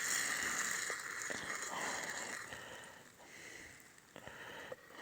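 Nuggets frying in hot oil in a pot over a campfire, a steady sizzling hiss with a few small crackles, fading away about halfway through.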